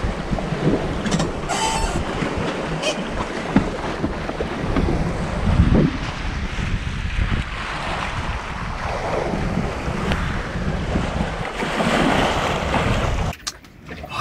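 Wind buffeting the microphone and waves washing past the hull of a sailboat under way at sea, in rising and falling gusts. The sound drops away suddenly near the end.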